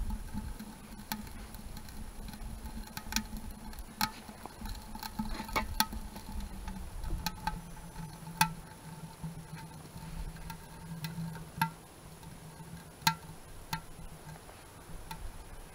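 Small kindling fire crackling inside a homemade wood stove built from a 20-pound propane tank, with sharp irregular pops every second or two as the fire catches.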